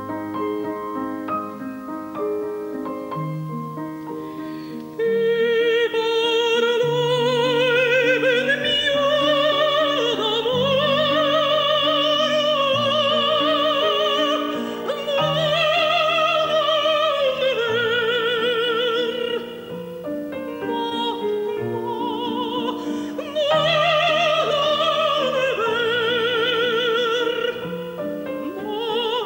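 A piano plays alone for about five seconds, then a woman's operatic voice comes in over the piano accompaniment, singing long high notes with wide vibrato and a couple of short breaks between phrases.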